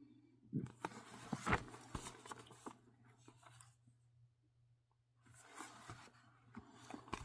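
Faint rustling and crinkling of comic books being handled, with a few soft taps. It stops for about two seconds in the middle, then starts again.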